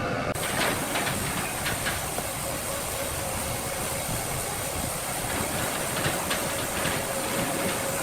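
Industrial machinery running: a steady hiss with a faint steady whine and scattered clatter and knocks.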